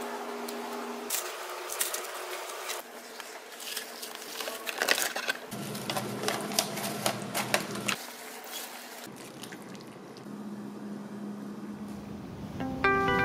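Quiet food-prep handling sounds over faint room hum, changing every second or two. Basil leaves are picked off their stems, then soaked rice noodles are lifted from their water with a cluster of small wet clicks and patters.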